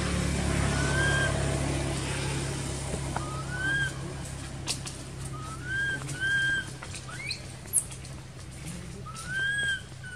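Baby macaque crying: about five short, high, whistle-like coo calls, each rising and then holding briefly, at irregular intervals over a steady low background hum.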